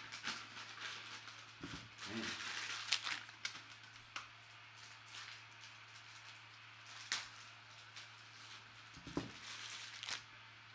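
Gold foil trading-card pack wrapper being torn open and crinkled by hand, a rustling crinkle with several sharp crackles.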